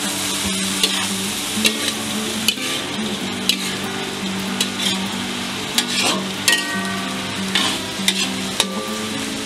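Spatula stirring and scraping through tempe, tofu and potato cubes in a wok, clacking against the pan about once or twice a second over a steady sizzle.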